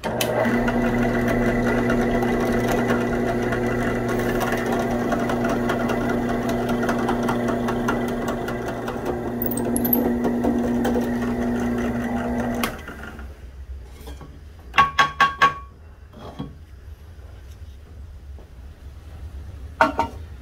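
Drill press running and boring into a steel knife blank and a wooden handle block, its motor droning steadily for about twelve seconds before it stops. Four sharp knocks follow in quick succession, and two more come near the end.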